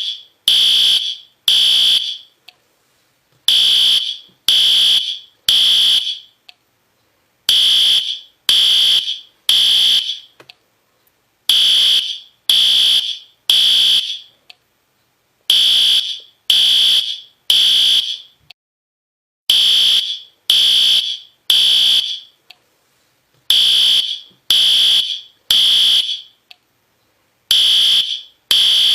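System Sensor P2R fire alarm horn strobe sounding the temporal-three evacuation pattern. It gives a high-pitched beep three times, about one a second, then a pause, repeating every four seconds.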